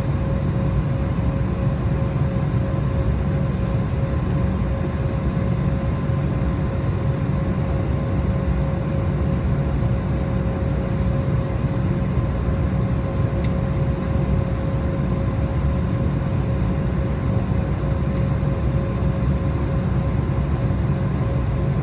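Cabin noise of an Embraer 190 airliner: its GE CF34 turbofan engines and the airflow make a steady, unchanging drone with a constant hum tone running through it.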